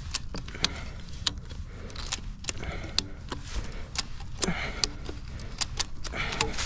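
Ratchet strap's ratchet clicking in a run of sharp, irregular clicks as its handle is worked back and forth, tightening a strap hooked to a quad stuck in mud.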